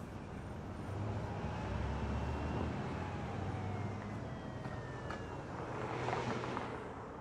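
Low, steady rumble of a car on the road, with road noise that swells to a peak about six seconds in.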